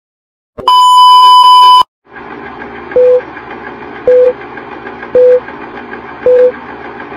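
Film countdown leader sound effect: a long, loud, high beep, then the steady rattling run of a film projector with a short beep and click about once a second, four times, as the numbers count down.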